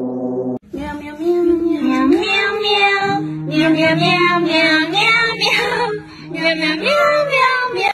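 A steady horn-like tone cuts off about half a second in. A high voice then sings over musical accompaniment.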